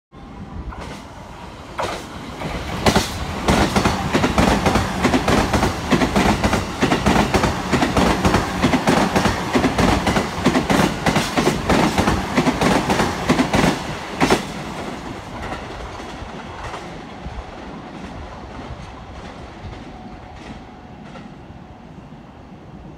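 JR East E353 series limited express electric train passing through the station at speed, its wheels clattering over the rail joints in a dense run of strikes. The sound builds about two seconds in, is loudest until about fourteen seconds, then fades away as the train recedes.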